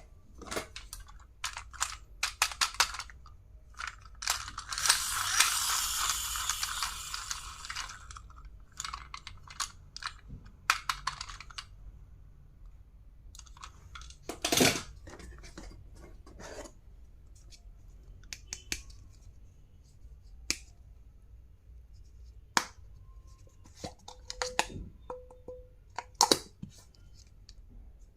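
Stationery and packaging being handled: scattered clicks and taps of small plastic items, with about four seconds of continuous packaging noise a few seconds in.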